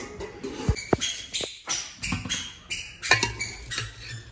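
Metal spoon scraping and clinking against aluminium cooking pots: a quick, irregular run of short scrapes, with two sharp knocks about a second in.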